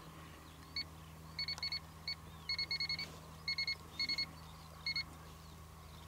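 A run of short, high electronic beeps, all at the same pitch, coming singly and in quick groups of two to five over a faint steady hum.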